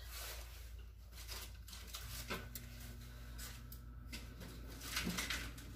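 Faint soft rustles and light taps of hands working bread dough on a paper-covered board, over a low steady hum.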